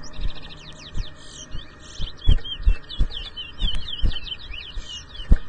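Caged towa-towa (chestnut-bellied seed finch) singing a fast run of sweeping, warbling whistled notes, phrase after phrase. Short low thumps sound under the song about once or twice a second, the loudest near the end.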